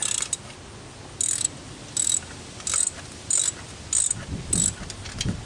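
Ratchet wrench clicking in about seven short bursts, roughly one every two-thirds of a second, as a bolt is worked. Some low knocking from handling comes near the end.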